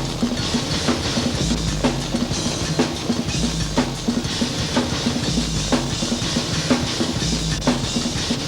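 Funk-rock band music led by a drum kit, with kick and snare strikes about twice a second over a low, sustained bass line.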